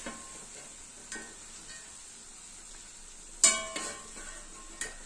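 Chicken pieces frying in hot oil in a steel kadai with a low sizzle, as they are lifted out half-fried with a steel ladle. There are several ringing metallic clinks of the ladle against the pan and plate, the loudest about three and a half seconds in.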